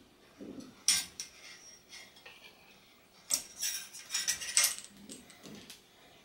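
Metal clinking and clattering as a long screwdriver and fork parts knock together while the elastomer spring stacks are pushed up and out of a RockShox Indy C suspension fork: a couple of sharp clicks about a second in, then a busier run of clinks around the middle.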